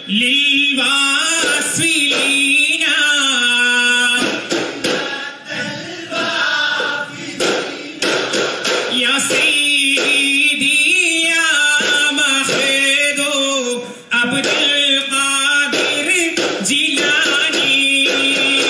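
Male voices singing a Duffmuttu song together, with long held notes near the start and the end, while duff frame drums are struck in rhythm.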